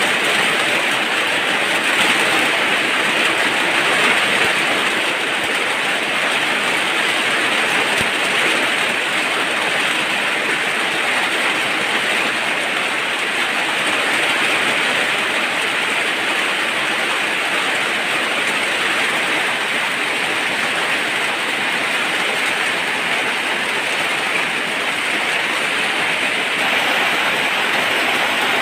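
Steady heavy rain falling, an even hiss that holds at one level.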